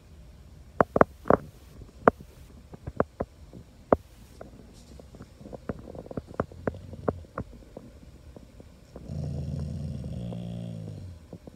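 A dog's low grumbling groan lasting about two seconds near the end, dipping in pitch as it trails off. Before it, a scatter of sharp clicks.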